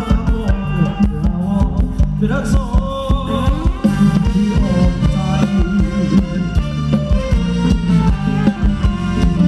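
Live band playing upbeat Thai ramwong dance music over loudspeakers, with a steady drum beat, heavy bass and a singing voice.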